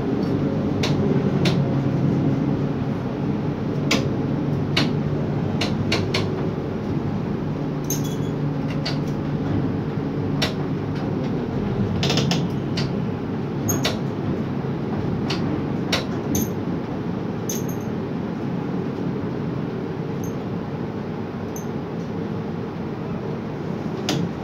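Steady machinery drone of a hot metal overhead crane heard from inside its operator's cab, with scattered sharp clicks and knocks through it.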